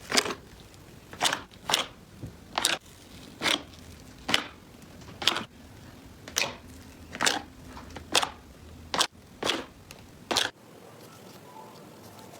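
Slime being pressed and squeezed by hand, giving short crackling pops about once a second, roughly a dozen times, which stop about ten seconds in.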